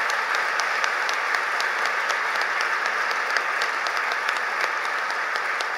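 Audience applauding steadily, with single sharp claps standing out from the dense clapping.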